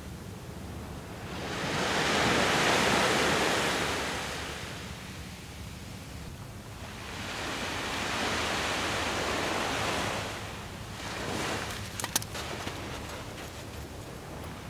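Waves breaking on a sandy beach: two long surges of surf wash in and ebb away, with a few sharp clicks near the end.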